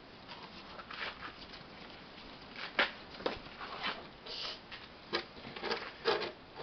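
Child's plastic snow shovel scraping and knocking on icy pavement in a few short, separate strokes.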